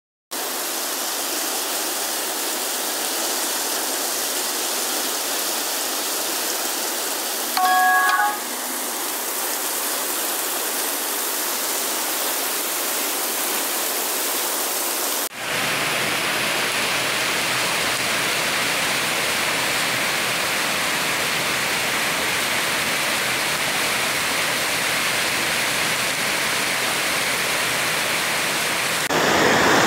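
Steady hiss of heavy rain and muddy floodwater running through the streets, changing abruptly to a fuller hiss about halfway through. A short pitched sound stands out briefly about eight seconds in.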